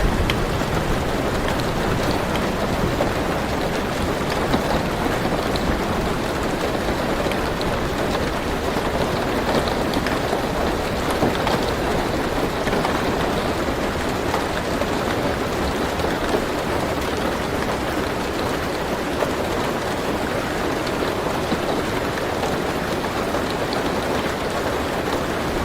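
Steady rain falling on a car roof, heard from inside the car, with faint scattered drop ticks.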